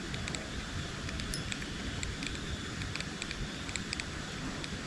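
Wind rumbling steadily on the microphone, with faint short high ticks repeating irregularly a few times a second.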